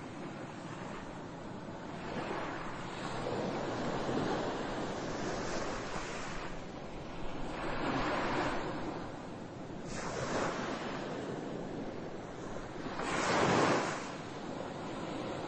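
Ocean waves washing in: a rush of surf that rises and falls in slow swells, the loudest near the end.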